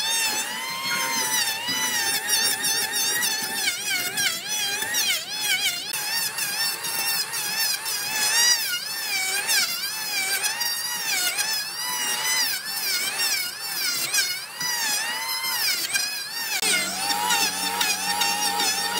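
Maktec electric hand planer shaving a log, its motor and cutter whine wavering up and down in pitch as the blades bite into the wood and ease off. Near the end the sound shifts and a steadier low hum joins in.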